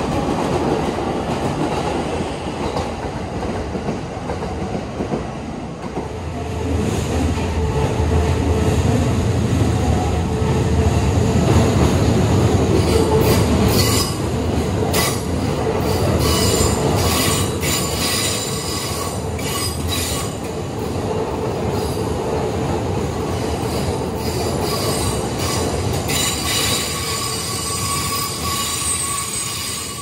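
Electric commuter train on the Keikyu line running past at close range, its wheels squealing steadily. A run of rail-joint clacks comes near the middle.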